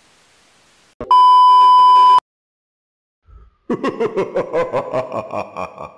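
Faint static hiss, then a loud steady high-pitched test-tone beep lasting about a second that cuts off sharply. After a short silence, a quick run of chiming musical notes, several a second, begins near the end.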